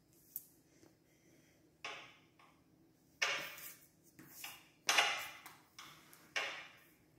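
A hand swiping across a sheet of drawing paper on a table: a series of dry brushing strokes, each starting sharply and fading, with the loudest about two thirds of the way in.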